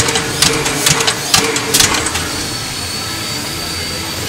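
Steady mechanical hum of a standing steam locomotive under steam, with a few sharp clicks about twice a second during the first two seconds.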